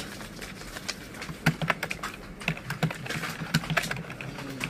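Typing on a computer keyboard: quick, irregular keystroke clicks that come thicker and louder from about a second and a half in.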